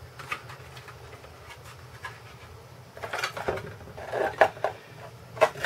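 Thin clear plastic inner-fender sheets being handled and pressed against an RC crawler's chassis: scattered crinkles, rustles and light clicks, busier in the second half.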